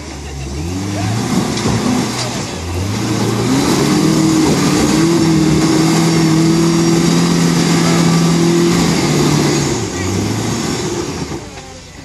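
Toyota pickup's engine revving under load as it crawls up a rock ledge. It goes up in a few short rising revs, is held at high revs for about five seconds, drops off about ten seconds in, gives one more brief rev, then eases off near the end.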